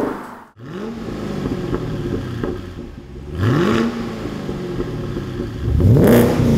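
Holden Commodore SSV's 6.2-litre LS3 V8, fitted with a VCM532 performance camshaft and a twin 3-inch exhaust with 4-into-1 headers, revving. Its note climbs and drops several times and is loudest near the end.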